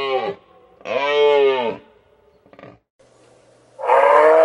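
Moose calling: drawn-out calls that rise and fall in pitch, each about a second long. One trails off at the very start, one comes about a second in, and another begins near the end.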